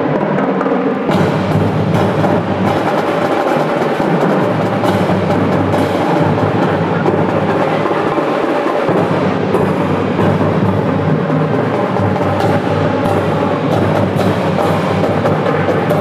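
Marching band drumline playing: snare drums, bass drums and hand cymbals struck together in a dense, unbroken beat.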